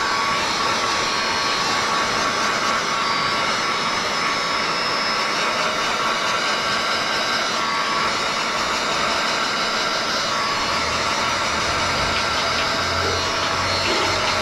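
Heat gun blowing steadily with a whine, used to heat-shrink window tint film to the curve of a car's back window.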